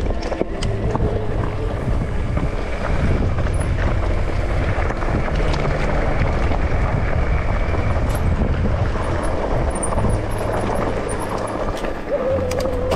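Wind rushing over the camera microphone on a mountain bike ride at speed, over the steady rumble and clatter of the bike rolling on a dirt trail. A wavering whine comes in near the end.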